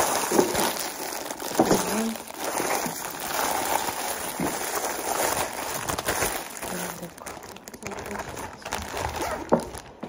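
Plastic packaging and cellophane crinkling and rustling as it is handled and unwrapped, with many quick crackles. It grows quieter about seven seconds in.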